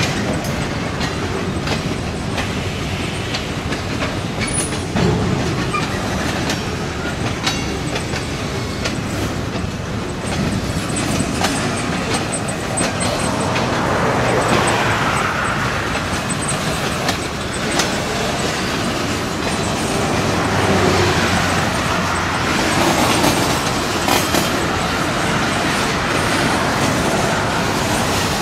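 Freight cars (tank cars and boxcars) rolling past: a steady rumble of steel wheels on rail, with a running clatter of wheels clicking over the rail joints.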